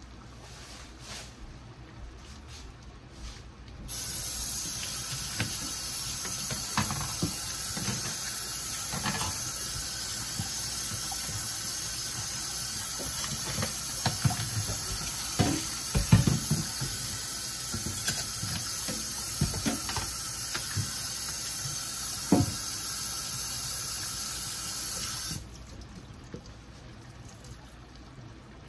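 Kitchen tap running. It is turned on a few seconds in and shut off near the end, about twenty seconds later, with scattered knocks and clinks under the stream.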